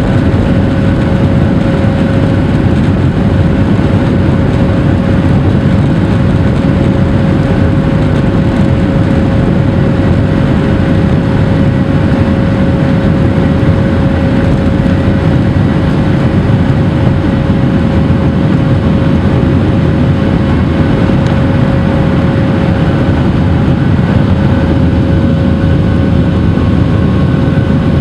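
Cabin sound of a Boeing 737-800's CFM56-7B turbofan engines at takeoff thrust through the takeoff roll and liftoff: a loud, steady rumble with a steady whine over it.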